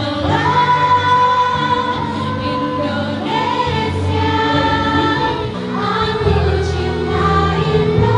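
Music: a song sung by many voices together in long held notes, over instrumental backing.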